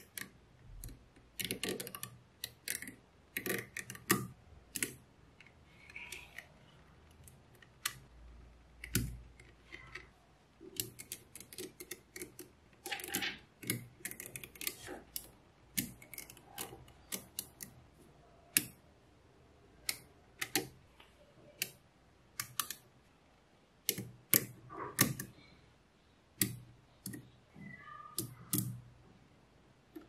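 Small neodymium magnet balls clicking sharply as they snap together and are pressed into place by hand, in irregular runs of clicks. There is a soft low thump about nine seconds in.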